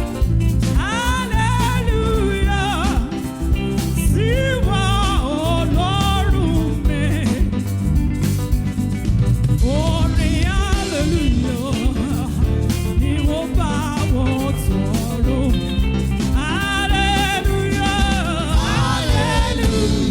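Gospel music: a solo voice singing with vibrato over a band with a steady beat.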